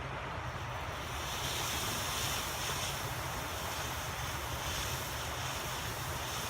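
Consumer ground fountain firework burning with a steady spraying hiss that grows brighter about a second in.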